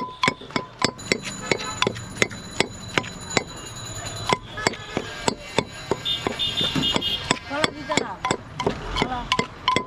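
Knife chopping rapidly on a wooden board, about three to four strokes a second, as raw elephant apple is chopped and mashed for bhorta.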